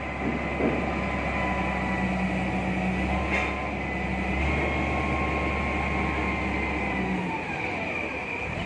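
Engine of a large 18-ton forklift running under load with a steady high whine over it; about seven seconds in the engine sound drops away and the whine falls in pitch.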